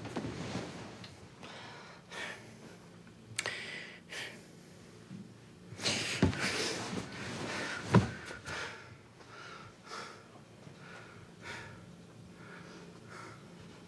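Duvet and bedclothes rustling as people toss and turn in bed, with two sharp knocks about six and eight seconds in. Softer, evenly spaced short sounds follow for the last few seconds.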